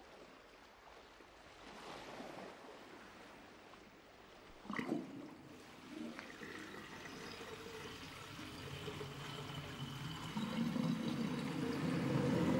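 Gentle trickling, lapping water, with a short louder sound about five seconds in, growing louder toward the end.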